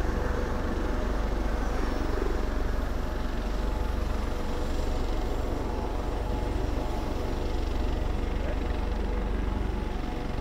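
Turbine helicopters running on the ground, among them a Eurocopter AS365 Dauphin taxiing past. There is a steady engine whine over a steady low rumble from the rotors, with no change in pitch or level.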